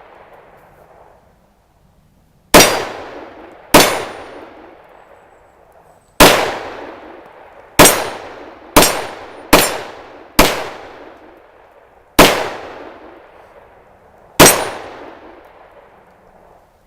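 Nine pistol shots from a Glock 31 Gen 4 chambered in .357 SIG, fired at an uneven pace with three quick shots close together near the middle; each sharp crack trails off in an echo lasting over a second.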